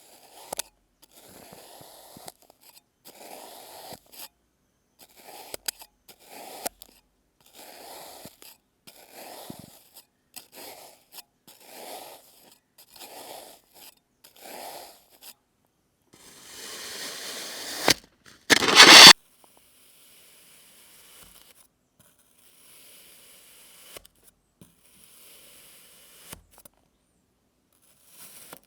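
Kinetic sand being cut and scraped: a run of short crunching scrapes, about one a second. A longer scrape swells up about sixteen seconds in, followed by one much louder short burst. After that only faint scraping remains.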